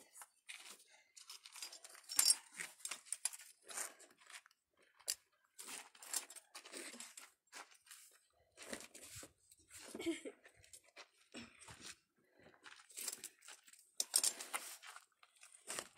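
Irregular scrapes and crunches of a climber's shoes and gloves on gritty sandstone and rope as she pulls herself up a fixed rope through a slot.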